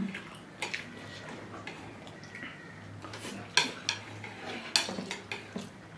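Chopsticks clicking and scraping against a bowl while noodles are eaten: scattered, irregular light taps, the sharpest about three and a half and nearly five seconds in.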